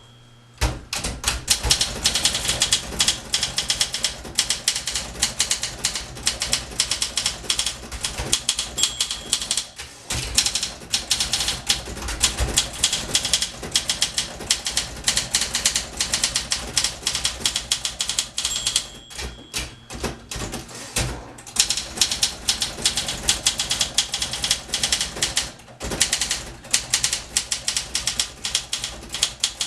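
1961 Olympia SM 4 portable typewriter being typed on at a fast, steady pace, a rapid patter of key and typebar strikes. Twice a short bell-like ding comes just before a pause in the typing, the margin bell near the end of a line followed by the carriage return.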